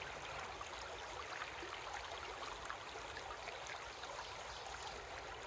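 Shallow river water babbling steadily over rocks, with small trickling splashes.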